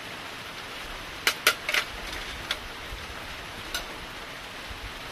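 Light rain falling steadily, with a few sharp clicks, most of them clustered about a second and a half in.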